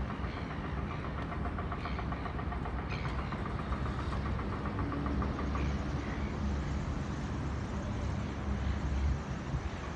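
Steady low rumble of an idling engine, with a fast regular pulse over the first few seconds, growing a little heavier in the second half.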